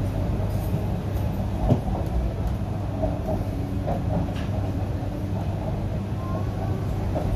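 MTR Q-Train metro car heard from inside the cabin while running: a steady low rumble of wheels on rail, with a few brief faint squeals and a sharp click about two seconds in.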